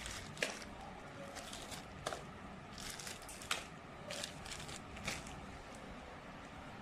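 Small clear plastic zip-lock bags of spare parts rustling and crinkling as a hand shuffles through them, with about five sharp crackles.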